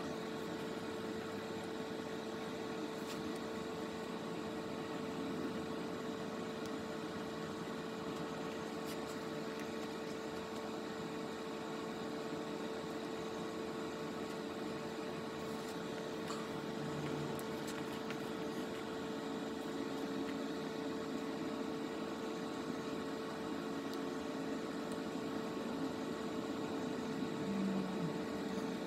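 A steady hum with a constant mid-pitched tone and a faint even hiss behind it, unchanging throughout.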